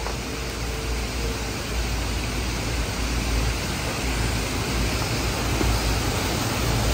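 Steady rush of a shallow, rocky mountain stream, with an uneven low rumble underneath.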